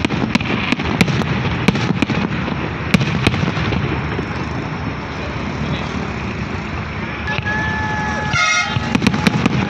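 Aerial fireworks bursting in sharp bangs, about three a second for the first few seconds and then only now and then, over a steady background din. A vehicle horn sounds for about a second and a half, about seven seconds in.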